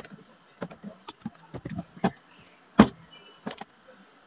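Irregular clicks and knocks of a car's interior door trim panel being pried and handled with a screwdriver, with one louder knock a little before three seconds in.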